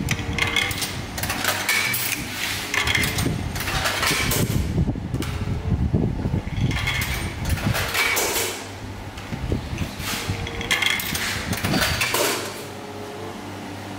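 Coin-operated hot drinks vending machine: coins clattering into the slot over a steady motor hum as the machine takes payment and prepares a hot chocolate.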